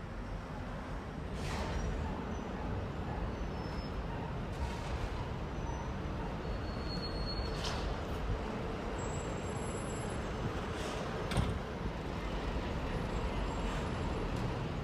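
Busy street traffic: a steady rumble of passing cars, buses and trucks, with a few short knocks and some brief high squeals.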